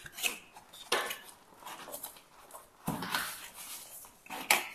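Unboxing handling noise: a plastic-wrapped LED light being lifted out of a cardboard box, with rustling and a few light knocks of packaging.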